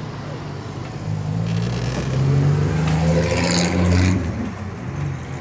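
A vehicle engine running. It gets louder through the middle and eases off near the end.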